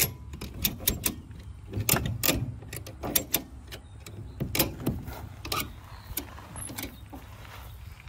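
Ratchet strap's steel ratchet clicking as the handle is worked to tighten the webbing, a run of irregular sharp metal clicks that thins out in the second half.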